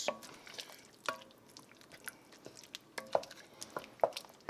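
A spoon stirring a pot of beef, tomato and spice soup base: soft wet squelching with a few light, sharp knocks scattered through.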